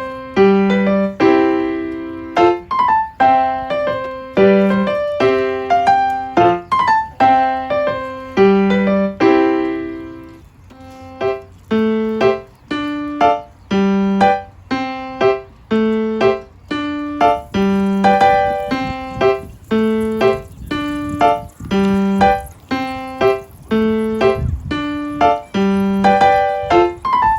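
Background music: a piano playing a light, rhythmic melody of struck notes.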